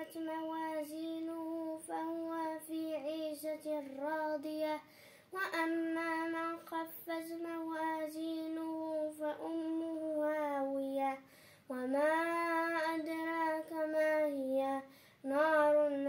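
A boy's voice reciting the Quran in a melodic chant, drawing out long held notes with small turns of pitch. Short pauses for breath fall between phrases about five seconds in, near the middle and near the end.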